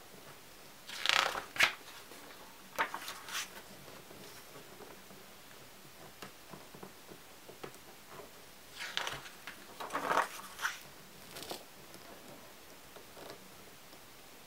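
Two pages of a hardcover photo album turned by hand, each a short rustling swish of paper: one about a second in, the other about nine seconds in. Small soft handling noises fall between them.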